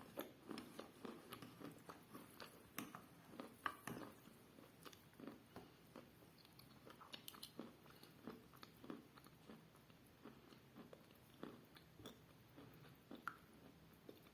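A person chewing pieces of chalk close to the microphone: many small, quick crunches, packed together over the first few seconds and then more scattered.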